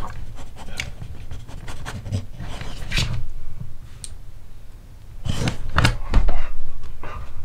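A puppy panting, with scuffing and knocks as it climbs down off the table, loudest about five to six seconds in.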